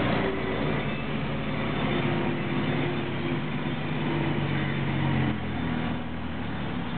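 Engine noise at low speed in traffic: a motorbike's engine running close behind a Lanka Ashok Leyland diesel bus, a steady hum whose pitch shifts a little about five seconds in.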